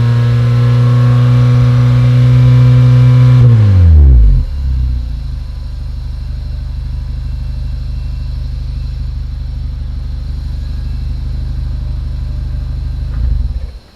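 Honda Vezel's 1.5-litre four-cylinder engine heard through its exhaust, held at steady high revs for about four seconds, then dropping back to idle and idling steadily, with a short blip near the end.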